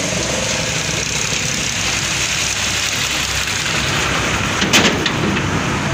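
Steady street noise with road traffic running throughout, and one brief sharp clack a little under five seconds in.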